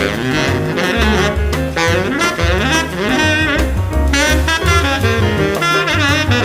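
Background jazz music: a saxophone-led melody over bass and drums.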